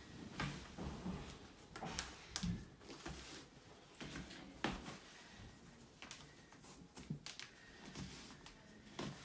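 Scattered small knocks and rustles in a small room as a man unlaces his sneakers on a wooden floor.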